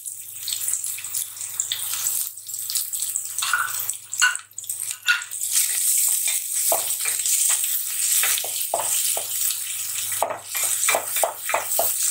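Chopped onions sizzling in a little hot oil in an aluminium pot. A wooden spatula scrapes and knocks against the pot as they are stirred, in quick strokes through the second half.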